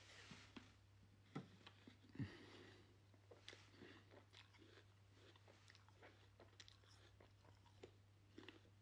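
Very quiet chewing close to the microphone: scattered faint mouth clicks and small crunches over a faint steady low hum.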